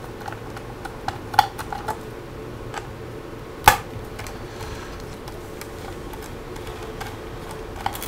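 Small Phillips screwdriver turning the captive screws of a laptop's plastic bottom panel, with a handful of small scattered clicks and one sharper click near the middle. The clicking is the sign that the screws are fully undone.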